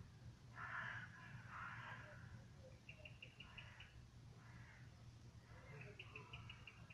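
Faint bird calls: several harsh calls, and twice a quick run of about six or seven short, high chirps. A steady low hum lies underneath.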